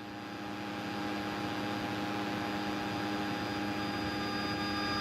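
Steady drone of a light aircraft's engine and propeller heard inside the cabin, a hiss with several unchanging tones, gradually growing louder.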